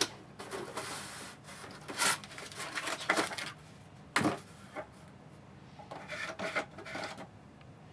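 Packaging being handled while a box is unpacked: irregular rustling and rubbing, with two knocks about two and four seconds in.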